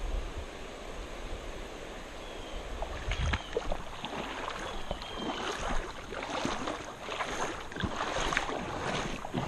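Steady wash of creek water with wind on the microphone, joined about three seconds in by irregular rustling and crunching footsteps.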